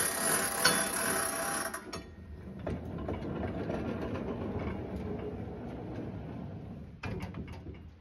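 Wood-Mizer LT15 portable bandsaw mill running: engine and band blade at full speed with a high whine, which drops away about two seconds in, leaving a quieter steady mechanical rattle. A few sharp clicks come near the end.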